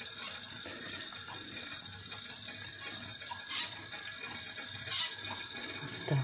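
Duck, onion and carrot simmering steadily in a frying pan while a metal spoon spreads raw rice over them, with two light scrapes of the spoon in the second half.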